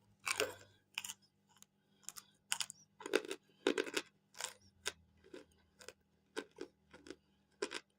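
Hard baked cornstarch chunks being bitten and chewed close to the microphone: a run of sharp, irregular crunches, about two or three a second.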